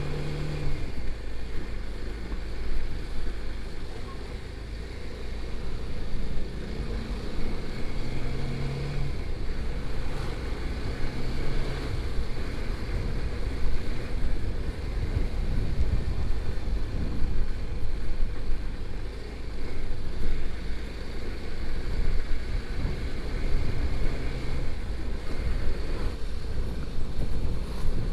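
Motorcycle being ridden on the road: its engine runs under a constant low rumble of wind and road noise, with a low engine hum standing out from it a few times.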